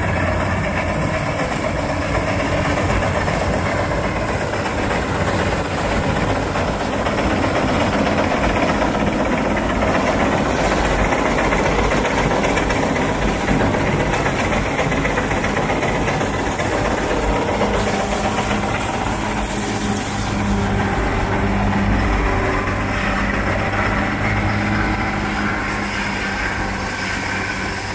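Bizon Super Z058 combine harvester running steadily under load as it cuts and threshes rapeseed: a continuous engine and machinery noise.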